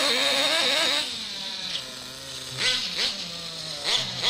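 Kyosho Mad Force nitro RC monster truck's two-stroke glow engine revving under throttle: high and wavering for about the first second, easing back, then three short revs in the second half.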